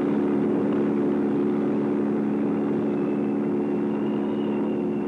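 Steady jet-engine drone of an RF-4B Phantom II on approach to a carrier deck, with a constant low hum under it. A thin high whine comes in about three seconds in, as the jet comes over the deck.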